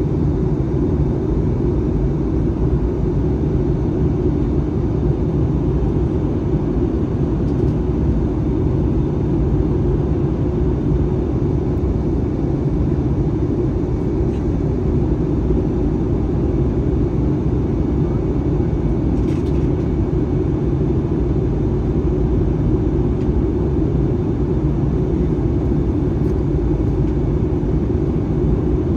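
Steady low cabin rumble of an Airbus A321-231 airliner in flight, engine and airflow noise heard from inside the passenger cabin. A faint tick about two-thirds of the way through.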